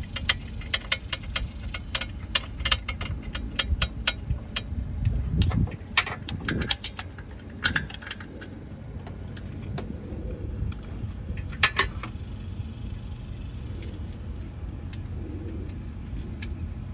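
Socket ratchet clicking and metal tools clinking while bolts are tightened, dense through the first half and sparser after, with low bumps of handling underneath.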